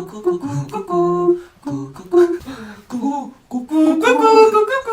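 Male voices humming and singing a wordless tune in short notes, loudest about four seconds in.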